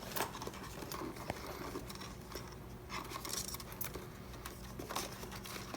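Light handling noises as a helmet speaker and its cable are fitted into a motorcycle helmet's liner: scattered small plastic clicks and soft rustling.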